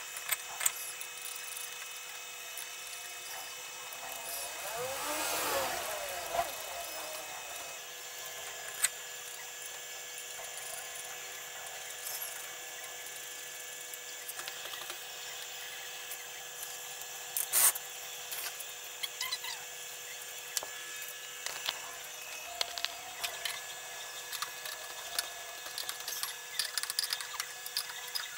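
Metal clinks and taps of wheel nuts and a cross-shaped lug wrench as a trike wheel is mounted and its nuts are tightened by hand, the clinks coming thicker in the last third, over a steady hum of several tones.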